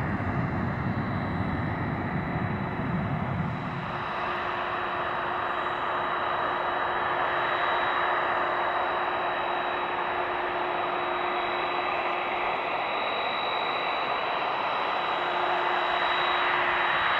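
A low rumble for the first three and a half seconds or so, cutting off suddenly. Then a Boeing 767-300ER's jet engines run at taxi idle: a steady rush with a thin high whine.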